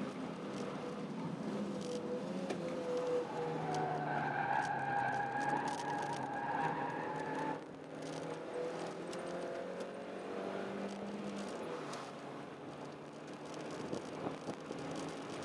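A Honda Jazz 1.3-litre four-cylinder engine pulling under hard acceleration, its pitch climbing steadily. It cuts back sharply about seven and a half seconds in, climbs again, and eases off about twelve seconds in.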